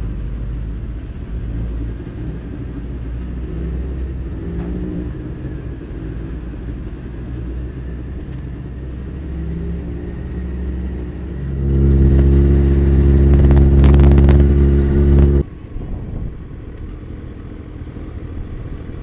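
Motorcycle engines running as a group of motorcycles rides past, a steady low rumble. About twelve seconds in, a much louder, steady engine note holds for about four seconds and then cuts off suddenly.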